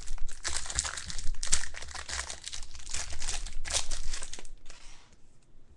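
The plastic wrapper of a trading-card pack crinkling and crackling as hands tear it open and pull it apart; the crackle dies away about four and a half seconds in.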